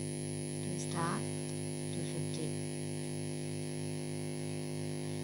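Steady electrical hum and buzz on the recording, with a short murmured syllable from a voice about a second in.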